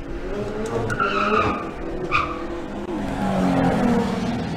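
Drag-racing cars' engines running and revving on the strip, rising and falling in pitch, with a high squeal about a second in and a sharper one around two seconds in.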